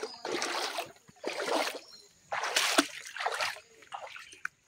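Shallow, muddy stream water splashing in several short, uneven bursts.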